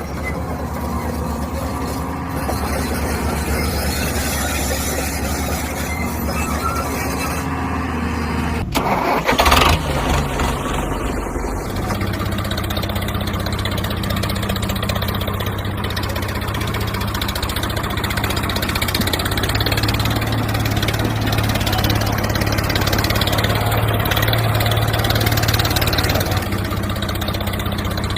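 Engine running steadily. About nine seconds in the sound changes abruptly, with a brief louder burst, then settles into a steady, somewhat heavier hum.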